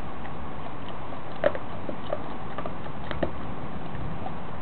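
Dog biting and chewing a plush teddy bear, a few sharp clicks standing out, the loudest about a second and a half in, over a steady background hiss.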